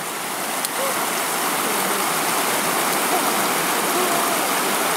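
Steady rushing water noise that swells a little in the first second and then holds even.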